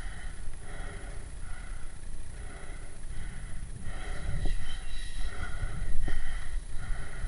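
A person breathing hard close to the microphone, one breath about every 0.8 seconds, over a steady low rumble of wind and camera handling.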